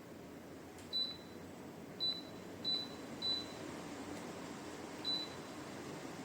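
Dreo Cruiser Pro tower fan's control beeping five times, short high beeps of the kind that acknowledge button presses, over the steady hiss of the fan's airflow.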